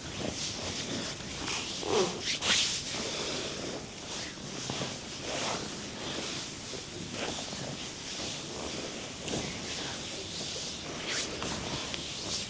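Hands rubbing and stroking bare skin in a body massage: irregular swishing strokes, with a couple of louder ones about two seconds in.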